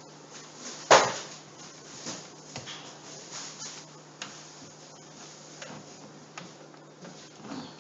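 Plastic clicks and taps from a laptop being handled and pried apart: one sharp knock about a second in, then scattered lighter clicks, over a low steady hum.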